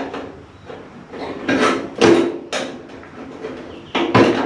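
A handful of irregular metal clanks and scrapes as bolts and a tool are worked at the sheet-steel cowl of a 1929 Ford Model A pickup, the panel briefly ringing with each knock; the loudest come about two seconds in and near the end.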